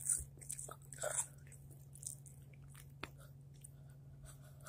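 Hot tortilla chips being bitten and chewed: a quick run of crisp crunches in the first second or so, then quieter chewing with one sharp crunch about three seconds in.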